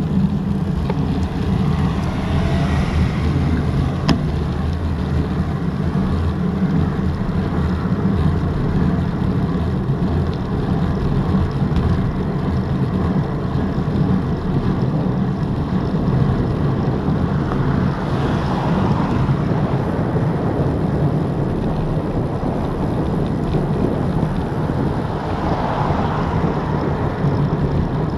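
Wind buffeting the microphone of a Garmin VIRB action camera on a bicycle coasting downhill, a steady low rumble. Three brief, fainter swells rise over it: about three seconds in, past the middle, and near the end.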